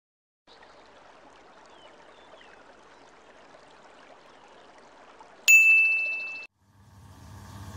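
Faint stream water running over rocks, then about five and a half seconds in a single bright notification-bell ding that rings out for about a second, the loudest sound. Near the end a low swell begins to rise.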